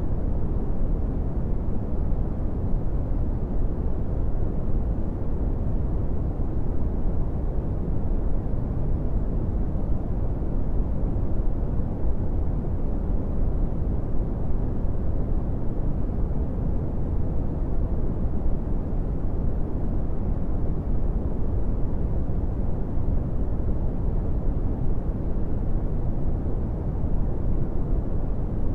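Brown noise: a steady, deep rumbling hiss, strongest in the low end and dull in the highs, unchanging throughout.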